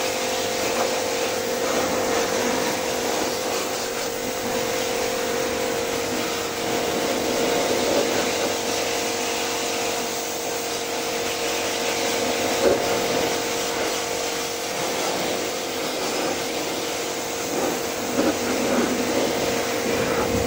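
Portable electric pressure washer running steadily, its motor and pump giving a steady hum, with the hiss of the water jet spraying an air-conditioner outdoor unit.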